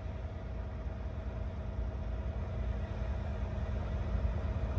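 Semi-truck's diesel engine and road noise heard from inside the cab while rolling slowly, a steady low drone with a faint constant hum over it.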